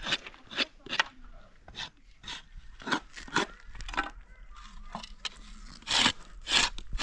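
Hand tools knocking and tapping on strips of scrap metal and wood: a series of sharp taps, roughly two a second, then two longer scrapes about six seconds in.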